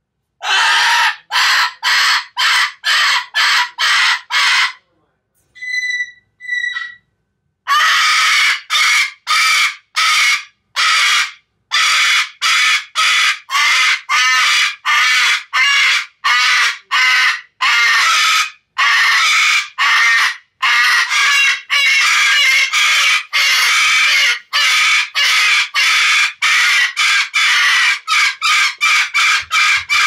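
Cockatoo screeching over and over in harsh, rhythmic calls, about two to three a second. About five seconds in the calls break off for a couple of seconds, with two short whistled notes, then resume and run on.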